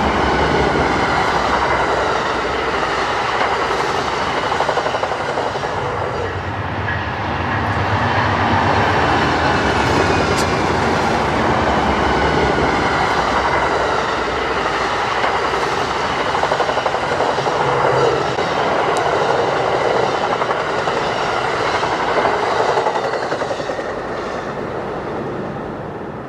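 Amtrak passenger train passing at speed, its wheels clattering over the rails as the long train of cars rolls by, fading off near the end.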